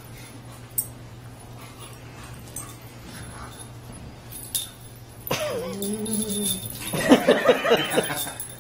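Dog play-wrestling: faint small clicks, then about five seconds in a low drawn-out growling sound, followed by a louder burst of quick, rough growling pulses near the end.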